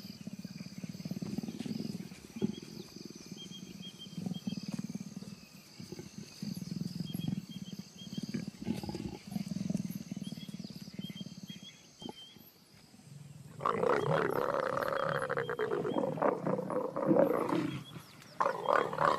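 A pair of leopards mating, growling in repeated low rumbles. About fourteen seconds in, a much louder snarl lasts some four seconds, and another begins just before the end.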